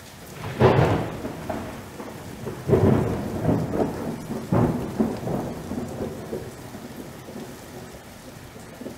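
Intro sound effect of three deep rumbling swells, about two seconds apart, over a steady rushing hiss that slowly fades.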